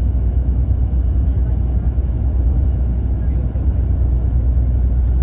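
Steady low road rumble heard from inside a vehicle's cabin at motorway speed: tyre and engine noise, even and unbroken.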